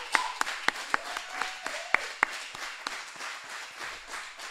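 Audience applauding, with sharp individual claps standing out over the dense clapping; it thins out and fades toward the end.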